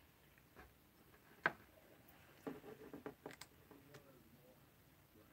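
Near silence broken by faint handling clicks and taps close to the microphone: one sharp click about a second and a half in, then a short run of small taps.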